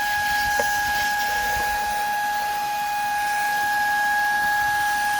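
Shark IZ251 cordless vacuum running steadily with a small brush attachment: a constant high motor whine over the hiss of rushing air.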